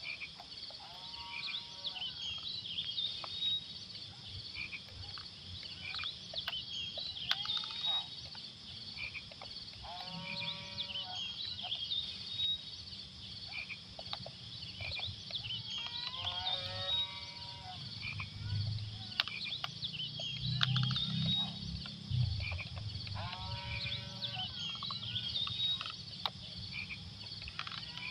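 Animal calls outdoors: a pitched, wavering call comes about four times, several seconds apart, over a steady background of high chirping.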